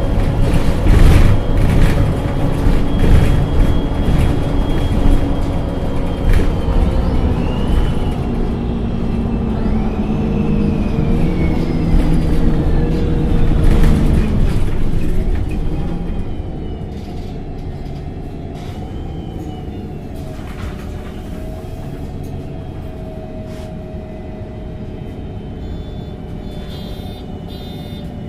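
LPG-powered MAN NG273 T4 articulated bus running loudly for about sixteen seconds, its engine and transmission note rising and falling, then going quieter and steadier as it eases off.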